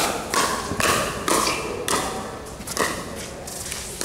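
Pickleball paddles hitting a plastic ball in a rally, a quick series of hollow pocks about two a second, echoing in a large hall.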